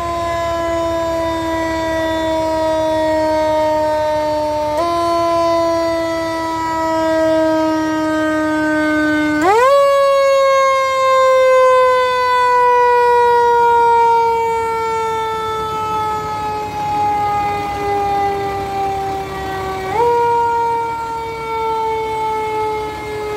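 Fire-truck siren sounding a low, steady wail that slowly sinks in pitch, pushed back up briefly about five seconds in, sharply higher near the middle, and once more near the end.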